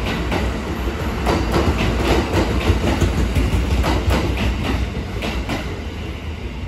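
Kintetsu 'Raku' charter train with double-deck Vista cars running past: wheels clicking over rail joints in pairs over a steady low rumble. It fades as the last car goes by near the end.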